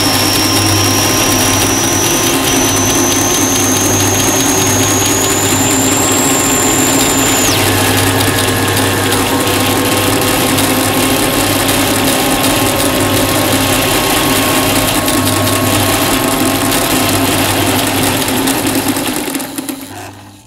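Jones electric sewing machine running steadily, its motor and mechanism blended with electronic tones: a high whistle that rises slowly and cuts off suddenly about seven seconds in, and a lower tone gliding slowly upward. The whole mix fades out near the end.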